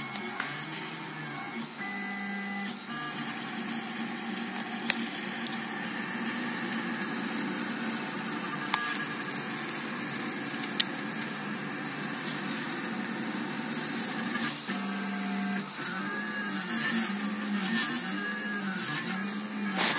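3D printer printing: its stepper motors whine in stepping and gliding notes as the hotend moves around the round print, over a steady hiss. In the last few seconds the pitch swings up and down in repeating loops about once a second, as the head traces each circular layer.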